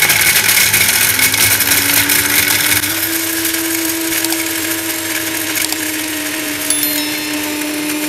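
Havells juicer mixer grinder's motor running at speed, grinding whole dried turmeric root in its stainless-steel jar: a loud motor whine over the hiss of the hard pieces being crushed. The motor's pitch climbs over the first few seconds as it comes up to speed, then holds steady.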